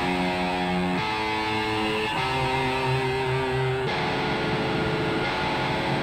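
Electric guitar playing slow, held chords that change three times, over steady synthesized wind noise from the Tonsturm Windmaschine plugin.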